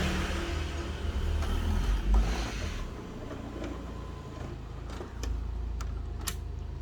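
HP OfficeJet X476 printer mechanism running, with stretches of air hiss and a few sharp clicks near the end. The air sound is what the technician traces to a faulty head air solenoid valve.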